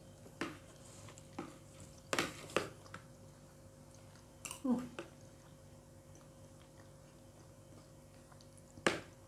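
Eating sounds: metal spoons clicking and scraping against plastic plates of fried rice, and soft chewing, as a few scattered sharp clicks, the loudest near the end, over a faint steady hum.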